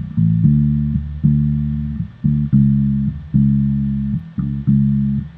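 Bass guitar playing a line of about nine plucked single notes, each ringing and then fading. It is the chord progression of a song's chorus, in D major.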